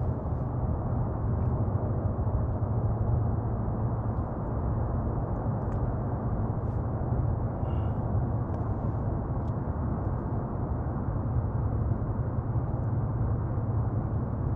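Steady low rumble of outdoor background noise, with a few faint ticks now and then.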